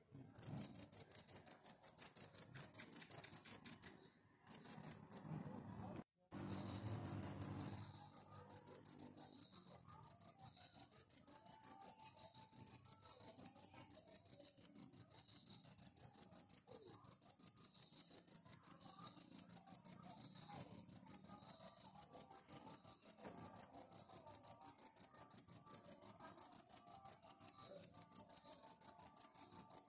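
Cricket chirping: a continuous high-pitched trill of fast, even pulses. It breaks off briefly twice in the first few seconds.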